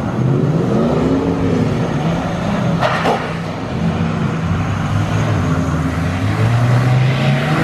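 A vehicle engine revving, its pitch rising and falling several times, over a steady rushing noise, with a brief sharp sound about three seconds in.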